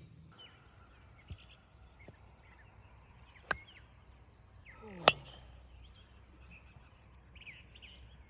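Quiet outdoor ambience with faint bird chirps. A sharp crack sounds about three and a half seconds in, and a louder one about five seconds in, just after a short descending swish.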